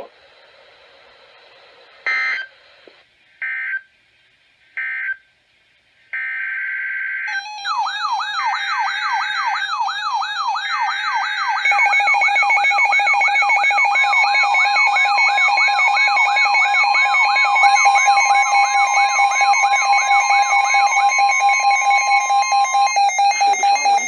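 Weather alert radios receiving a new alert. First come short data bursts of the digital alert header, three of them a second or so apart, then a longer one. The radios then go off together about seven seconds in: warbling siren alarms, rapid repeating beeps, and a steady alert tone.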